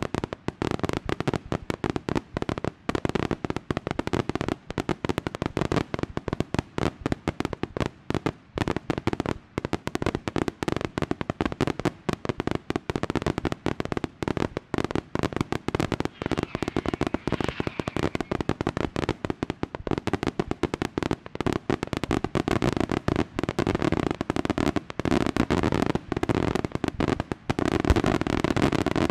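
Daytime aerial fireworks going off in a dense, unbroken rattle of bangs and crackles, many per second. The barrage grows louder near the end.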